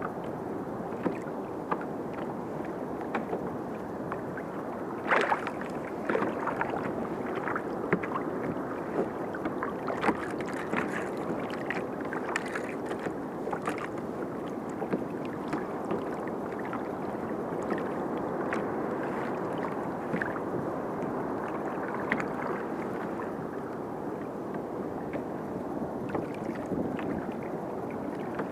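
Choppy sea water washing and slapping against a kayak's hull: a steady wash with frequent short splashes, the sharpest about five seconds in and a run of them around ten to fourteen seconds in.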